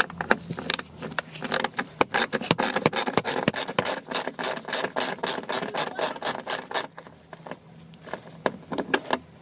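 Hand ratchet wrench clicking rapidly as a small hex screw is backed out, the clicking stopping about seven seconds in with a few more clicks near the end.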